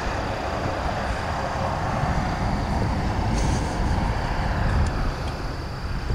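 Wind buffeting the microphone: a steady, uneven rumble with a hiss over it.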